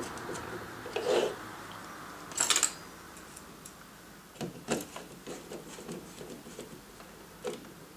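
Hand screwdriver driving screws to fix a mounting holder onto a PC cooler fan: faint scraping and scattered small clicks, with one sharper clink about two and a half seconds in.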